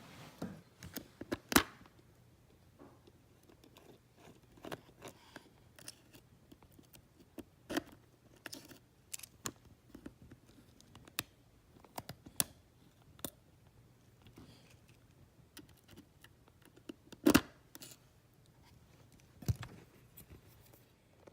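Irregular small clicks and taps of a precision screwdriver and tiny screws against an iPhone's frame and the work surface during disassembly. A sharper knock comes about a second and a half in, and two more come late on.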